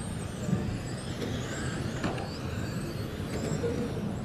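Radio-controlled electric touring cars racing: several high motor whines glide up and down in pitch as the cars accelerate and brake, over a steady low rumble.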